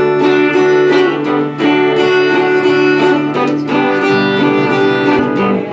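Viola caipira, the Brazilian ten-string guitar, playing a plucked, melodic instrumental introduction to a song.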